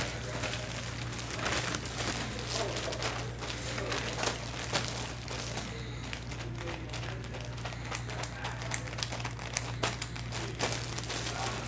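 Clear plastic bag crinkling and rustling as a bagged sports jersey is handled, in dense irregular crackles.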